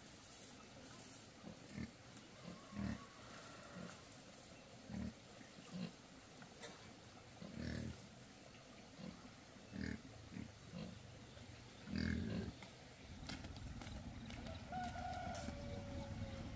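Wild boar grunting: short, low grunts every second or so, a couple of them longer and louder.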